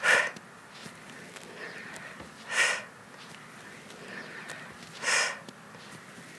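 Sharp, forceful exhalations, one with each push-up: three short breaths out about two and a half seconds apart.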